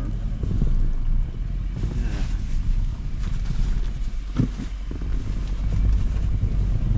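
Car driving on a snow-covered road: a steady low rumble of engine and tyres.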